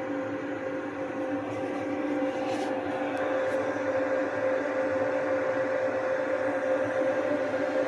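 Steady hum of a diode-laser CNC cutter and its enclosure exhaust fan running while the laser cuts through wood, with two held tones. It grows slightly louder about two seconds in, with a few faint ticks between about one and three and a half seconds in.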